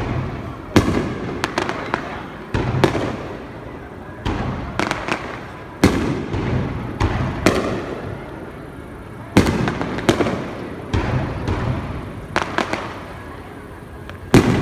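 Aerial fireworks shells bursting one after another, about a dozen sharp booms each trailing off in a low rolling rumble, with smaller crackling pops between them. The biggest bangs come about a second in, near three seconds, near six, near nine and a half, and just before the end.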